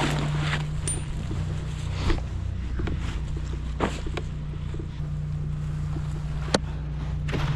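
An engine running steadily with a low, even hum, with three sharp clicks or knocks spread through it.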